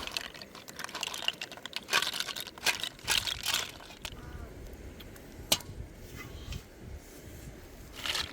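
Sharp clicks and crackles in bunches, densest around the second and third seconds, with a single louder click about five and a half seconds in and another near the end.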